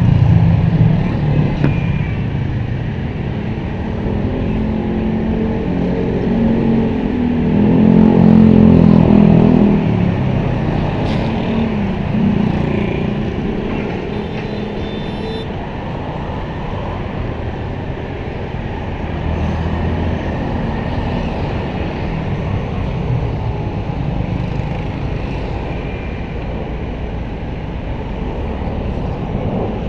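Diesel engine of a small backhoe running and revving up and down as it works, swelling loudest about eight seconds in and easing off again.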